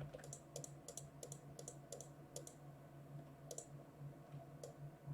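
Faint computer mouse clicks, a quick irregular run in the first couple of seconds and then a few scattered clicks, over a steady low electrical hum.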